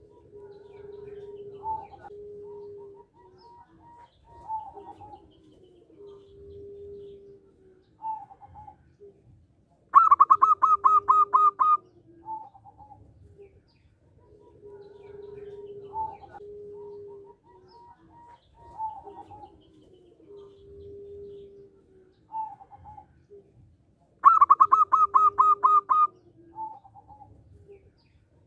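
Zebra dove (perkutut) singing: repeated low coos with short higher notes between them. Twice, about ten seconds in and again near the end, comes a loud rapid run of short, higher notes lasting about two seconds.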